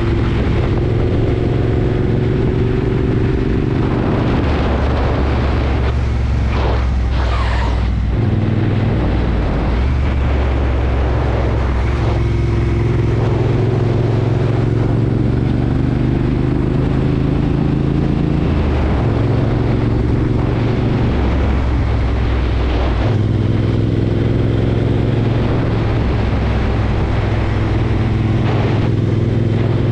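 2017 Triumph Bonneville Bobber's 1200 cc parallel-twin engine running under way through an aftermarket British Customs turn-out exhaust, its note stepping up and down several times as the throttle changes.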